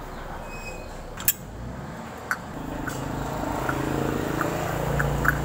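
A sharp click about a second in, then a low motor hum that grows steadily louder through the second half.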